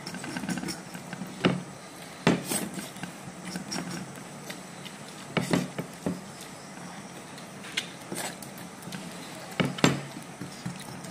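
Tableware clinking during a meal: a handful of sharp, irregularly spaced clinks and knocks on a plate or bowl, with pairs close together about two seconds in, around five and a half seconds, and near ten seconds.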